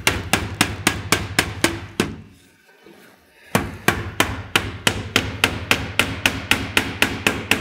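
Hammer driving finish nails through aluminum fascia into the wood fascia board: a quick, even run of sharp strikes, about four a second, that stops for about a second a little over two seconds in, then starts again.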